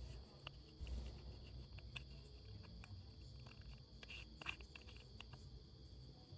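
Faint handling sounds: scattered light clicks and taps as gloved fingers work the dust cap off a small metal microscope camera's lens mount, over a faint steady high-pitched hum.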